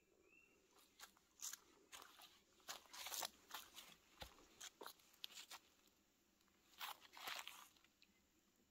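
A hiker's footsteps crunching on the forest floor, an irregular run of short crunches with a brief pause about two-thirds of the way through.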